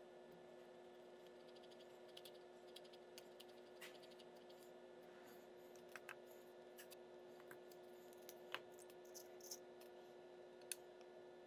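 Faint scattered clicks and light taps of small parts handled on a tabletop, a wooden stick spreading epoxy and a knife handle scale set onto a steel tang, over a steady low hum. A few sharper clicks come in the second half.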